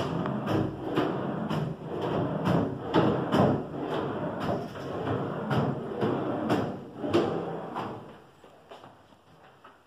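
Pull-out wardrobe drawers being pushed shut one after another, a run of wooden knocks and thuds about two a second that dies away near the end.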